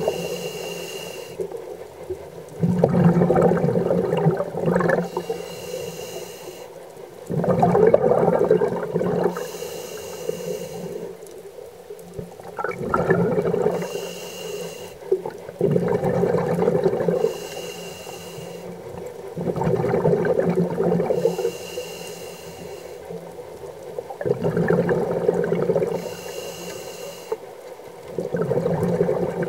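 Scuba diver breathing through a regulator about every four seconds: a short hissing inhale carrying a thin tone, then a louder, longer rush of exhaled bubbles.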